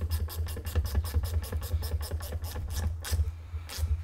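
Klein 65200 slim mini bit ratchet clicking rapidly, about eight clicks a second, as it is worked back and forth driving a wood screw into a block of wood. The clicking stops about three seconds in as the screw seats, with a couple of last clicks near the end, over a steady low hum.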